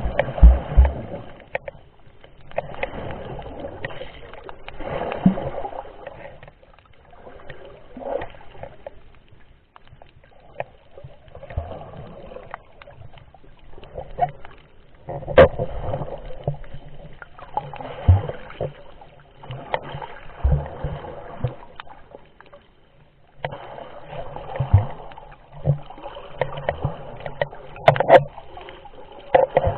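Muffled water noise picked up by a camera held underwater while snorkelling: sloshing and gurgling that swells and fades every two to three seconds, with a few sharp knocks.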